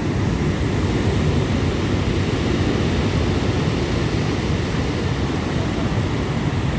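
Steady low rumble of wind buffeting the microphone over the wash of sea surf.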